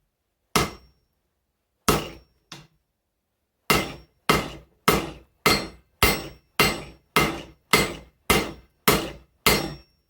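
Hand hammer striking mild steel flat bar on an anvil while forging an axe: two single blows and a light tap, then a steady run of about eleven blows, a little under two a second, each with a short metallic ring.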